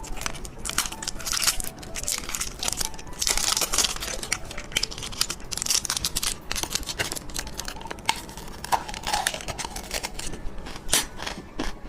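Plastic candy packaging being torn open and crinkled by hand: a dense, continuous run of crackles and rustles.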